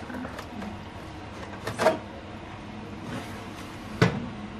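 Oven rack with a foil roasting tray on it being pushed back into the oven: a metallic clatter about two seconds in and a sharp knock about four seconds in, with a few small clicks around them.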